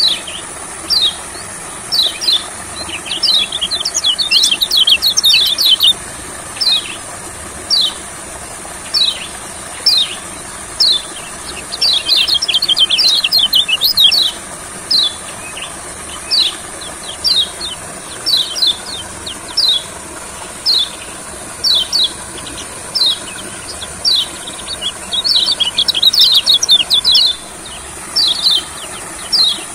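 White-eye (kecial kuning) calling in short, high chirps about once a second, broken three times by fast runs of twittering song lasting two to three seconds each.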